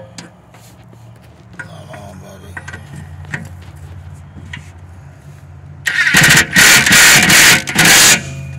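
Cordless impact driver with a long socket extension driving a self-tapping screw into the mower deck to fasten the new blade motor, run in three loud rapid hammering bursts near the end.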